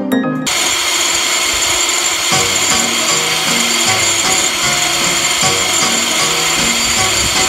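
Electric rotary grinder running at high speed, its bit grinding metal inside a two-stroke scooter cylinder to enlarge the exhaust port. A steady high whine with a rough grinding hiss, starting about half a second in.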